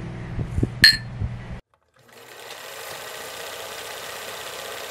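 Two drinking glasses clink together in a toast about a second in: one sharp clink with a bright ring, over a low hum. After a moment of silence, a steady, fast mechanical whirring rattle begins.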